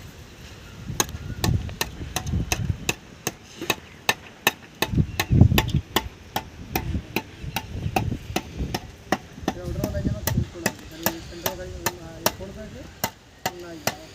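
Hand tools striking repeatedly at a building site: sharp metallic knocks at an uneven pace of about two to three a second, over duller low thuds.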